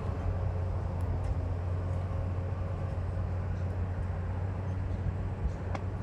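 A steady low engine hum.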